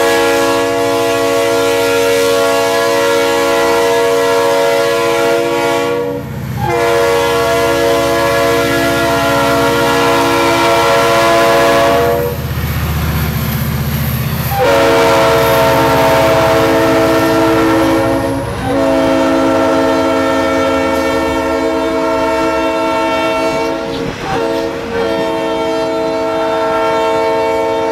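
Diesel locomotive multi-chime air horn sounding a chord in about five long blasts, each several seconds, with short breaks between them. In a longer pause in the horn, a few seconds past the middle, the low rumble of the passing EMD SD45's 20-cylinder diesel engine comes through, then freight cars roll by.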